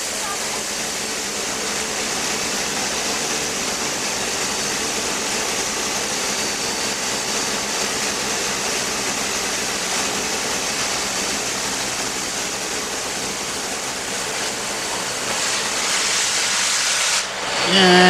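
Steam hissing steadily from the 32-class 4-6-0 steam locomotive 3265, growing louder in the last few seconds as steam billows from the cylinders, then cutting off suddenly near the end.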